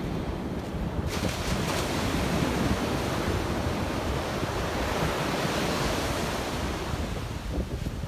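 Ocean surf breaking and washing up a sandy beach. The wash swells about a second in and eases near the end, over a low rumble of wind on the microphone.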